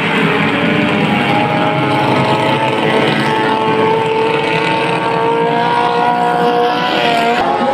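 Engines of several racing speedboats running together at high revs. Their overlapping tones hold steady and drift slowly in pitch as the boats race off.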